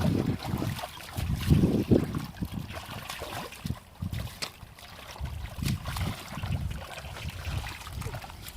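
Water trickling and splashing, with small clicks and irregular low rumbles that are loudest about one and a half to two seconds in.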